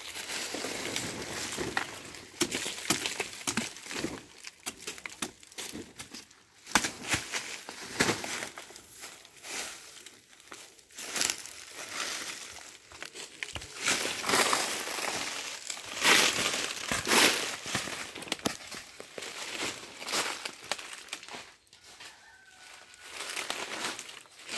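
Dry fallen banana leaves crackling and rustling as they are handled and trodden on, with many irregular sharp crunches. It goes quieter near the end.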